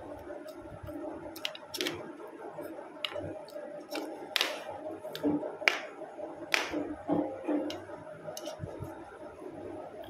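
Close mouth sounds of eating snail curry by hand: about six sharp sucking slurps as snails are sucked from their shells, with chewing and small clicks between them.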